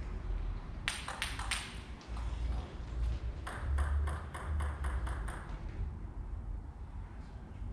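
Table tennis ball clicking in quick succession: a short run of about four clicks about a second in, then a faster run of about eight clicks a little past halfway, over a low hall rumble.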